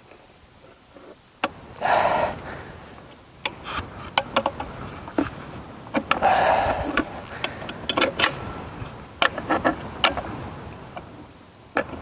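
Scattered clicks, knocks and short metallic scraping rattles from hands and tools working on the stopped electric garden shredder's cutting head, where its central bolt has come loose. The louder scraping rattles come about two seconds in and again past the middle.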